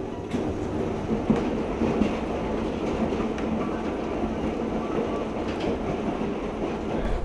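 Vintage electric trolley car running along the track, heard from inside its wooden cab: a steady rolling rumble of wheels on rail with occasional clicks.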